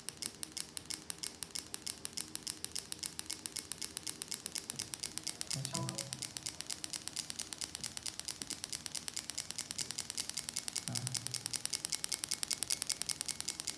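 Rapid, even clicking, about ten a second, of fuel injectors pulsed by a Hyundai/Kia SIM2k-140 engine ECU on a bench tester, firing in time with a simulated crankshaft signal of about 350 rpm. The clicking grows louder toward the end.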